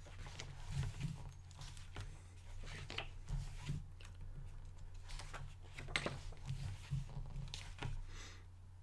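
Paper pages of a hardcover art book being turned and smoothed down by hand: faint rustles and soft flicks, a few a second, over a steady low hum.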